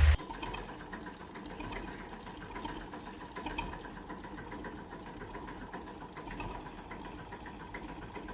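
Faint, steady mechanical ticking at a rapid, even rate with a light hum: a small machine running.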